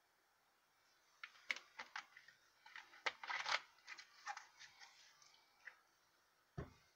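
Thin plastic bottle crinkling and clicking as it is handled off-screen, a run of sharp crackles over a few seconds. Near the end, a single soft thump of something set down on the table.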